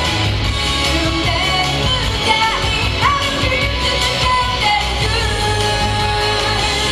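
A woman singing a J-pop anime song live into a microphone over recorded backing music, amplified through the hall's speakers.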